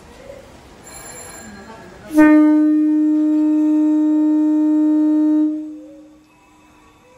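Electric locomotive horn of a Kurobe Gorge Railway train sounding one long steady blast of about three seconds, the departure signal, then dying away.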